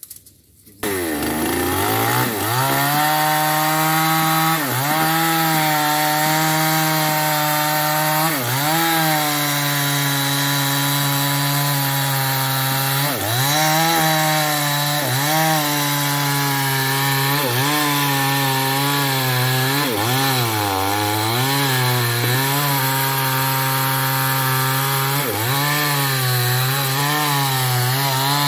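New West 588 two-stroke chainsaw running at high revs, crosscutting a felled ketapang (tropical almond) trunk. Its pitch dips briefly again and again as the chain bites into the wood, then recovers. The saw sound starts abruptly about a second in.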